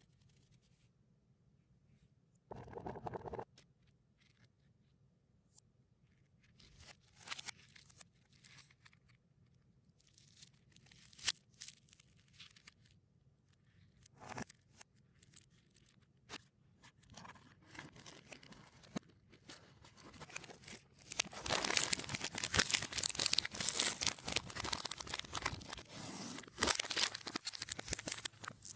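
Plastic snack and candy-bar wrappers and packaging being handled, crinkling and tearing, played in reverse. There are sparse crackles at first and dense, continuous crinkling from about two-thirds of the way through.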